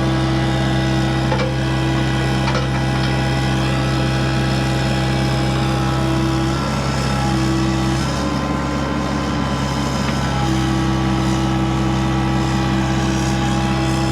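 Heavy equipment engine running at a steady speed, with a few light knocks in the first few seconds.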